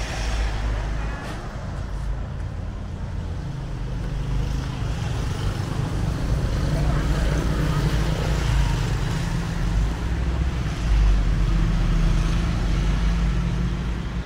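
Street traffic: a steady low rumble of passing vehicle engines, with faint voices in the background.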